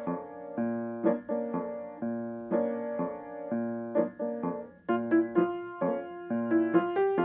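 Piano music with no speech: chords and single notes struck and left to ring, the notes coming more often after about five seconds.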